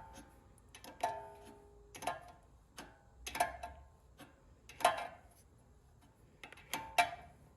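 Steel wrench clinking against the tie rod end's castle nut as the nut is snugged: five or six sharp metallic clicks with a brief ring, about one every second or two.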